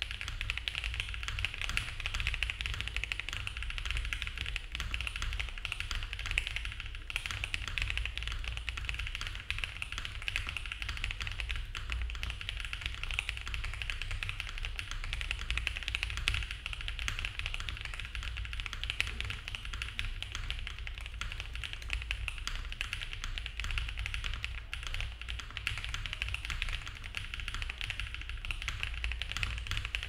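Think6.5 V3 mechanical keyboard with Mode Obscuras switches, a polycarbonate plate, case and plate foam and GMK keycaps, typed on steadily and quickly: a dense, unbroken run of clacky keystrokes.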